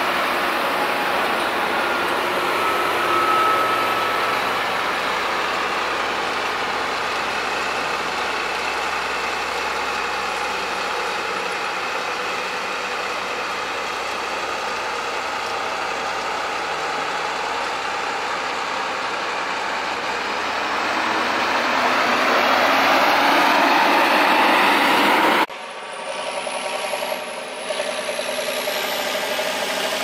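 Farm machinery running as it passes close by: a tractor with a tanker, then a New Holland CX800 combine harvester, which grows louder to a peak near the end. After an abrupt cut, a tractor engine is heard more quietly, with a high whine that rises and dips.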